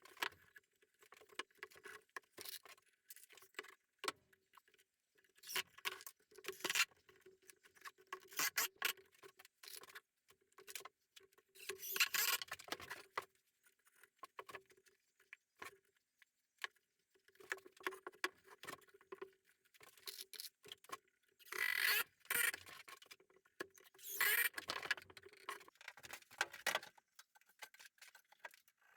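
Irregular scratching and rustling with small clicks and knocks, in louder scraping stretches about twelve seconds in and again near twenty-two and twenty-five seconds, under a faint on-and-off hum.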